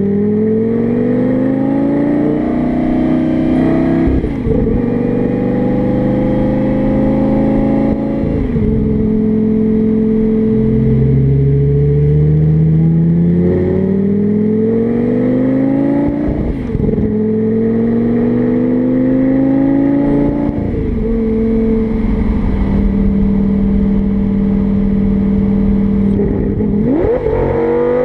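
Lamborghini Gallardo Spyder's V10 engine driving and accelerating through the gears. The engine note climbs in pitch, drops suddenly at each upshift about five times, and holds steady between pulls.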